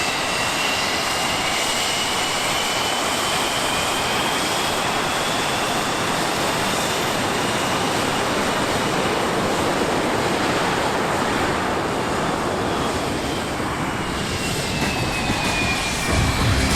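English Electric Lightning jet fighter's engines running at high power: a loud, steady roar with a high whine that rises slowly and then falls away near the end.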